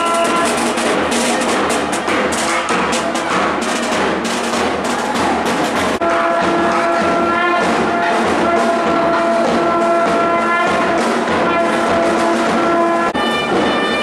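Loud procession music: wind instruments play a sustained melody over quick, sharp drum strokes. The music jumps abruptly about six seconds in and again near the end.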